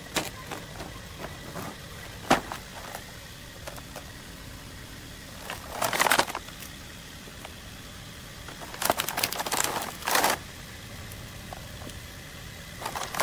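Toy action figures and their cardboard box and plastic packaging tray being handled: a sharp click, then bursts of rustling and scraping about six seconds in and again from about nine to ten seconds, over a low outdoor rumble.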